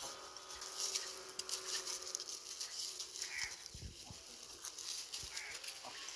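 Dry crackling and rustling as a cauliflower is broken apart by hand and monkeys move over dry leaf litter, with a few short, soft calls from rhesus macaques.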